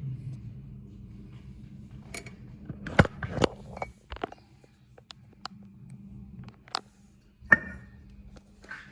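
Scattered sharp knocks and clicks of objects being handled, the loudest a pair about three seconds in and a single one past seven seconds, over a faint steady low hum.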